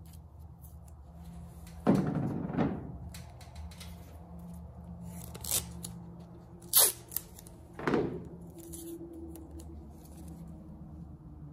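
Yellow masking tape being pulled from the roll and handled, a few short rasps and knocks about two, five and a half, seven and eight seconds in, over a low steady hum.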